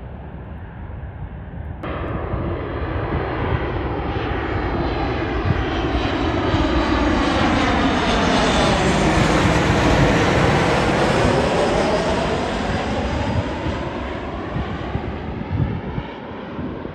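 Boeing 737 twin-jet airliner with gear down flying low overhead on final approach. Its engine noise swells to a peak about ten seconds in, with a sweeping whoosh as it passes, then fades as it flies away. A quieter, more distant jet sound fills the first two seconds before an abrupt change.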